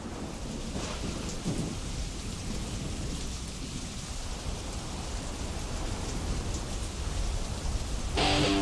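Steady rushing water ambience with a deep low rumble, the sea-and-rain kind of relaxation soundscape. Near the end, music with plucked-string notes comes in over it.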